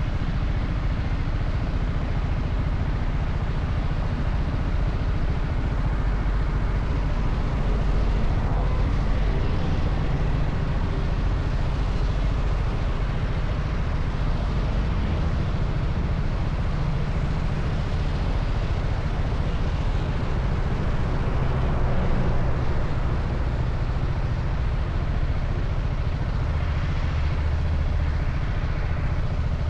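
TVS Apache RR 310's single-cylinder engine running on its stock exhaust, a steady low drone that swells briefly about 8 and 22 seconds in, over an even hiss.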